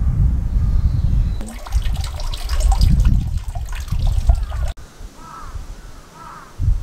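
Water trickling and splashing from a bronze dragon-head spout into the stone basin of a temple purification fountain, under a heavy low rumble. After a cut about three-quarters of the way in, it is quieter, with two short bird chirps.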